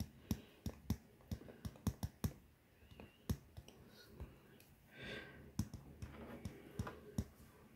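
A stylus tip tapping and clicking on a tablet's glass screen while handwriting, faint, sharp, irregular clicks a few times a second, with a short pause about three seconds in.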